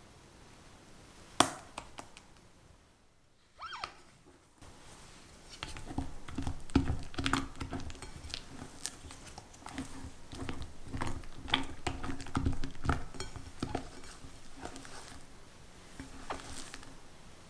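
Silicone spatula folding thick mascarpone cream in a glass bowl: soft wet squelches and scrapes with light taps on the glass, continuous from about five seconds in. A single sharp tap about a second and a half in.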